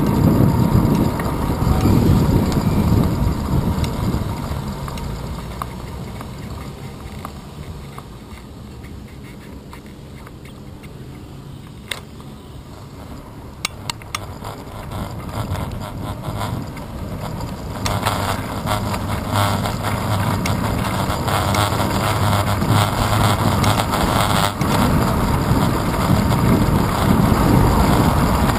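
Wind buffeting the microphone of a handlebar-mounted action camera on a moving bicycle, with road noise. It dies down through the middle as the bike slows at a crossing, with a few sharp clicks, then builds again as the ride picks up, with a low steady car engine hum alongside for several seconds.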